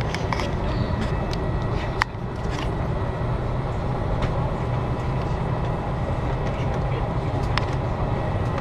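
Steady low rumble of an airliner cabin's engine and ventilation noise, with faint passenger chatter and a few short clicks, the sharpest about two seconds in.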